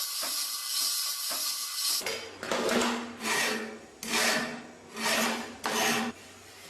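Hand abrasive work on a part, rubbing or rasping: a steady scraping hiss, then about six separate back-and-forth strokes roughly half a second apart, stopping about six seconds in.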